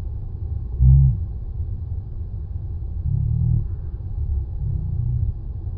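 Ocean swell surging and breaking against a rock ledge, heard as a low, muffled rumble that swells about a second in and again around three and five seconds.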